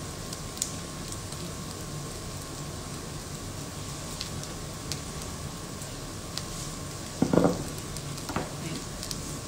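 Chijimi batter of parsley and onion frying in sesame oil in a nonstick pan over medium-low heat: a steady, gentle sizzle. A short knock about seven seconds in.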